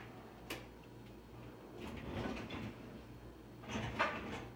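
Muffled handling noise from a covered phone's microphone: a small click, then scraping and a sharp knock about four seconds in, over a steady low hum.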